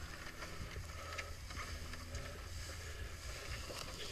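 Handling noise from climbing a rope cargo net: scattered knocks and rubbing against a constant low rumble of wind on the microphone. A faint steady hum underneath stops about halfway through.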